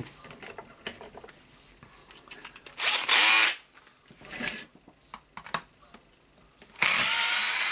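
Bosch cordless drill-driver running in two short bursts, unscrewing the screws that hold the anti-vibration system on a Hitachi H45MRY demolition hammer. The second burst is the longer, and light clicks of handling come between them.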